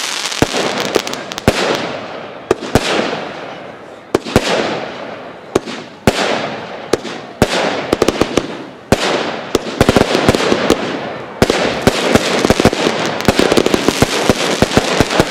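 Professional fireworks display: aerial shells bursting with sharp bangs, each followed by a fading crackle. The bangs come thick and fast from about eleven seconds in.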